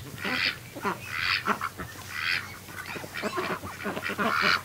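Domestic ducks and geese calling in short honks and quacks. A swishing rustle comes about once a second and is the loudest sound.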